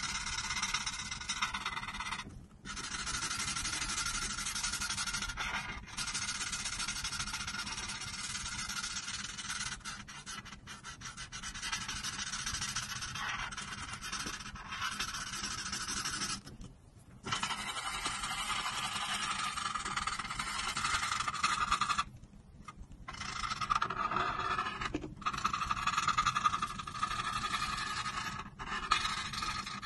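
Felt-tip marker scratching back and forth across paper as an area is coloured in. The strokes run almost without a break, with short pauses where the pen lifts, the longest about 17 and 22 seconds in.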